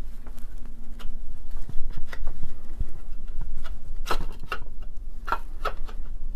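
Irregular light clicks, taps and scrapes of the motor housing parts of a vintage Fein ASG 658 power tapper being handled and slid apart during teardown. The sharpest knocks come in a cluster about four to six seconds in, over a steady low hum.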